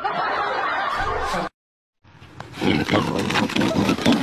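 A loud, steady roar that starts abruptly and cuts off after about a second and a half. After a brief silence, a different, noisier stretch of sound begins.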